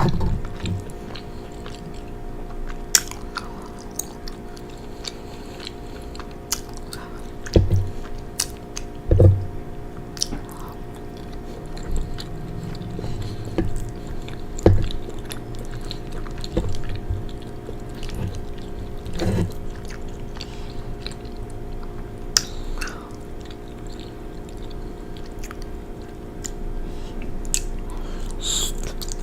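Close-up mouth sounds of chewing soft penne pasta: wet smacking and clicks, with a few louder thumps spread through, over a steady low hum.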